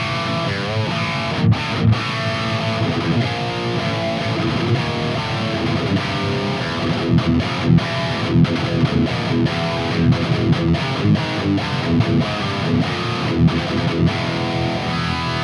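High-gain distorted electric guitar riffing through a Mooer Brown Sound preamp pedal on its red channel, EQ set with the mids scooped and the bass at about 2 o'clock. The riff is dense and continuous, broken now and then by short clipped stops.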